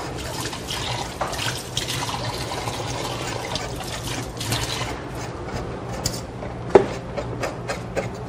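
Kitchen tap running water into the sink for about five seconds, then turned off. After that a whisk clinks against a metal cooking pot several times, one clink louder than the rest.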